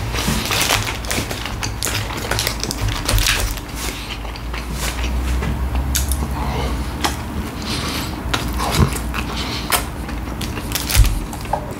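Biting and chewing McChicken sandwiches, two stacked together, with many short wet clicks and crunches.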